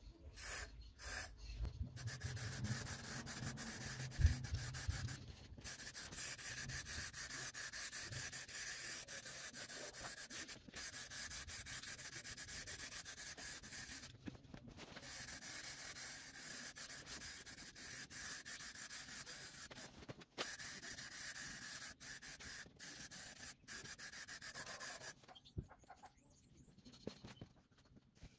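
Aerosol spray can spraying: a steady hiss in long bursts, broken by a few brief pauses, stopping a few seconds before the end. There is a low rumble and a soft thump about four seconds in.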